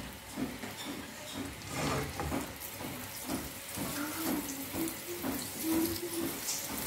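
Butter starting to melt and sizzle in a nonstick frying pan swirled over a gas flame, heard as a steady watery hiss with a few light clicks.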